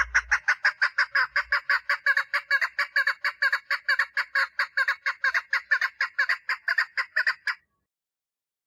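Female chukar partridge calling for a mate: a fast, even run of short repeated notes, about six a second, that stops about seven and a half seconds in.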